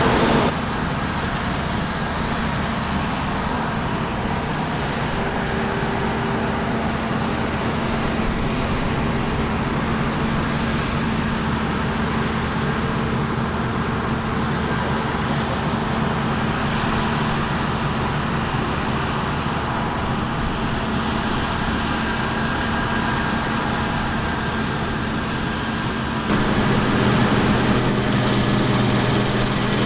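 Heavy farm machinery engines running steadily, a low hum with a constant tone. The sound changes abruptly, half a second in and again near the end, where it turns louder with a stronger low hum.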